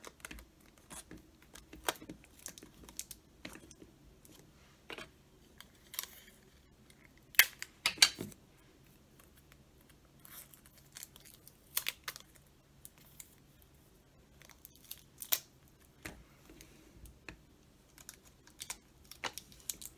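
Hands handling wrapped candy rolls and sticky tape against a plastic drink bottle: scattered small taps, clicks and crinkles, with a few louder sharp clicks about seven or eight seconds in.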